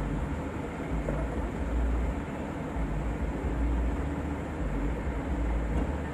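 Truck diesel engines running with a steady low rumble.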